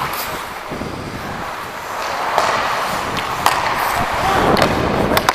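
Ice hockey skates scraping and carving the ice during fast skating, heard from a helmet-mounted camera with wind rushing over its microphone. A few sharp clacks stand out, typical of sticks or a puck on the ice.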